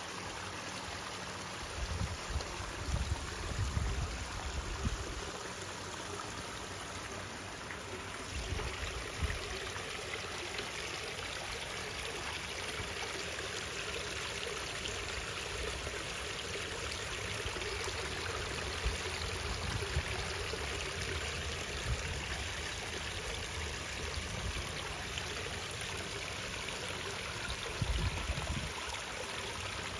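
Water trickling and running steadily in a small rock-lined stream, with a few low bumps on the microphone.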